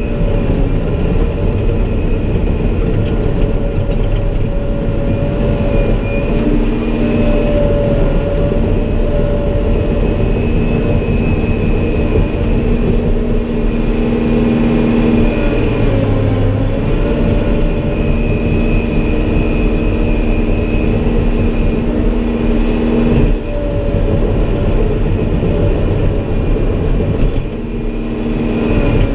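Caterpillar 963 track loader's diesel engine running under load, heard from inside the cab, with a steady whine that wavers in pitch as the machine works and dips briefly about two-thirds through.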